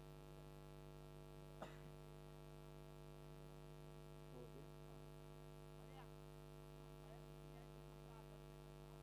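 Near silence with a faint steady electrical hum, and one faint click about one and a half seconds in.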